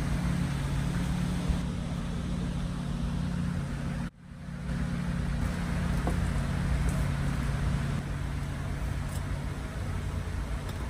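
Steady low rumble with a hum, outdoor background noise such as wind on the microphone and distant traffic, broken by a brief drop-out about four seconds in.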